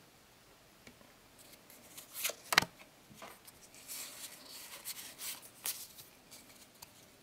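Pokémon trading cards handled in the hand: a run of light rustles and crisp clicks as the cards are slid and shuffled through. The loudest click comes about two and a half seconds in.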